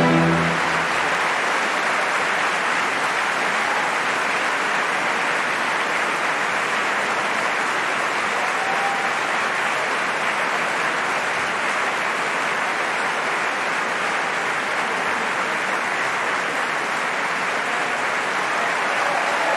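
The orchestra's last chord dies away in the first moment, then a large opera-house audience applauds steadily.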